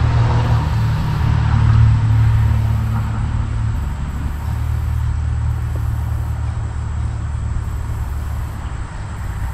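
A low, steady engine rumble that slowly fades over the seconds.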